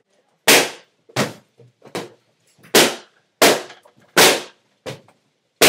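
Latex party balloons being burst one after another: a series of sharp pops, about one every three-quarters of a second, some louder than others.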